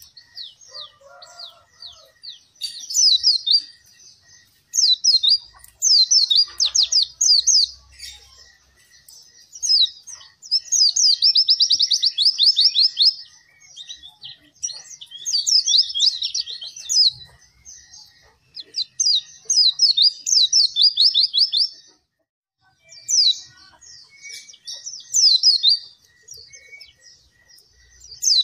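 White-eye (pleci) singing hard, in fast runs of sharp, high notes. The runs come in phrases of one to three seconds with short pauses between.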